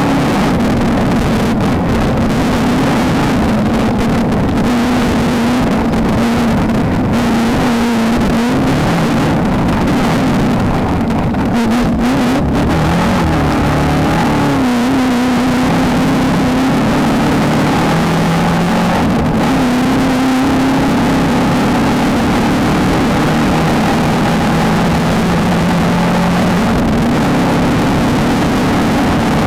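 Off-road race car engine running continuously under load, its pitch wavering and dropping for a while near the middle, over a steady rush of noise.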